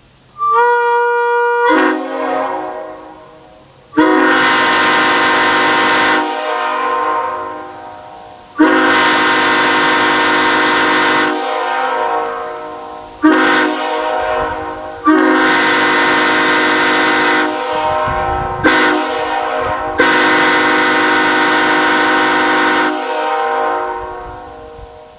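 Nathan Airchime K5HL raised-letter five-chime locomotive air horn sounding seven blasts, five long and two short, each a sustained multi-note chord that fades slowly after it cuts off.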